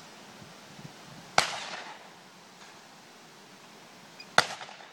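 Two shotgun shots from a 12 bore side-by-side, each a sharp bang with a short echoing tail, about three seconds apart.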